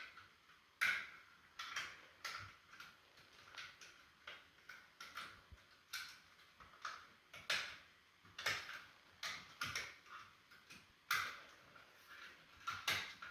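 Irregular light clicks and ticks of wires and a cable connector being worked into a pot light's small plastic junction box, roughly one or two a second.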